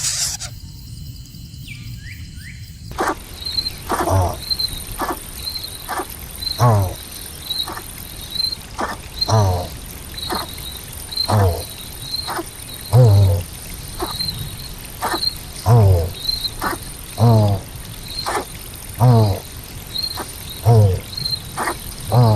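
Repeated animal calls, about one a second, starting about three seconds in. Each is a low thump with a quick falling sweep, over a steady high-pitched chirping.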